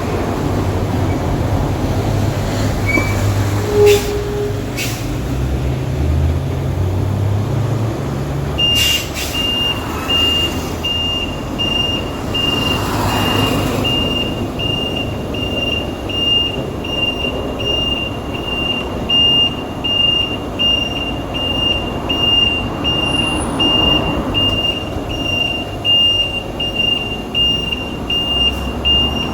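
Semi-trailer truck's reversing alarm beeping at an even pace, about one and a half beeps a second, starting about nine seconds in. Under it the truck's engine runs, its low rumble heaviest before the beeping begins, with a few sharp clicks.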